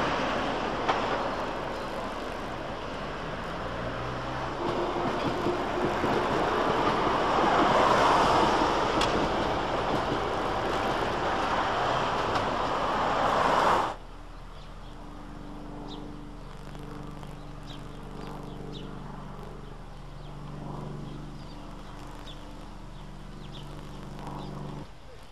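Road traffic: cars passing close by as a rushing noise that swells and fades, loudest about 8 and 13 seconds in. About halfway through it cuts off abruptly to a much quieter background with a low, steady hum.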